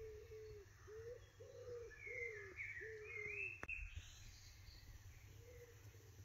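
A pigeon cooing in a run of repeated soft low notes, about three a second, fading off after about three seconds and returning faintly near the end, with a small bird chirping briefly about two seconds in.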